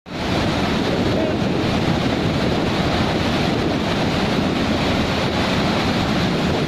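Floodwater pouring over a dam's open flap gate and crashing into the spillway below: a loud, steady rush of turbulent whitewater.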